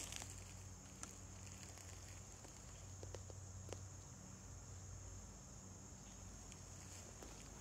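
Quiet woods with a steady high-pitched insect drone, and a few faint clicks from steps on the forest floor about a second in and again around three seconds in.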